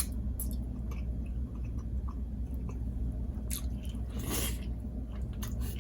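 Close-up chewing of a piece of meat dipped in egusi soup: scattered wet clicks and mouth smacks, with one longer wet, noisy sound a little past the middle.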